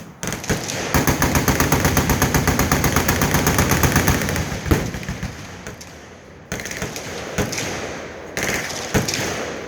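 Automatic gunfire from machine guns on a firing line: one long, rapid burst of about a dozen shots a second lasting some three seconds, then scattered single shots and shorter bursts overlapping from several guns.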